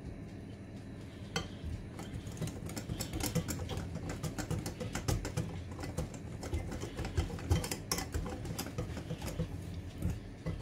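Wire whisk beating thick semolina cake batter in a glass bowl: rapid, irregular clicking of the metal tines against the glass, starting about a second in.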